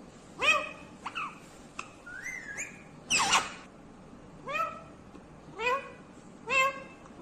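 Ringneck parrot (rose-ringed parakeet) calling: a run of about seven short, upward-curving squawks and whistles. There is a rising whistle about two seconds in and a louder, harsher call about three seconds in.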